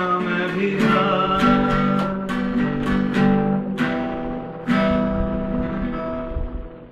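Guitars strumming chords, each strum left to ring. The playing thins out and the last chord dies away near the end.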